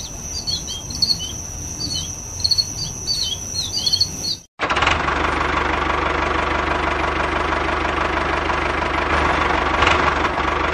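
Birds chirping in short repeated calls over a thin steady high whine. After a brief dropout, a small motor on the miniature model tractor runs steadily as the tractor drives over sand.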